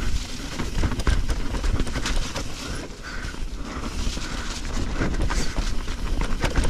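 Mountain bike rolling over a rough dirt trail: tyres on dirt and roots, with the bike rattling and clicking over bumps above a steady low rumble.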